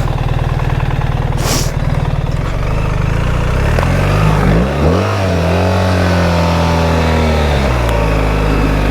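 BMW R 1300 GS Adventure's boxer-twin engine working through mud: the revs climb about four seconds in, hold for a few seconds, then drop back. A brief hiss comes about a second and a half in.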